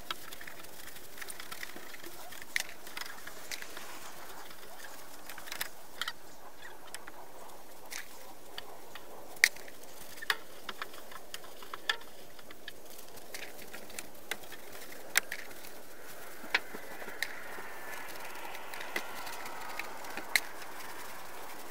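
Faint steady outdoor hiss broken by sharp, irregular clicks and taps, roughly one a second. Faint gliding tones come in near the end.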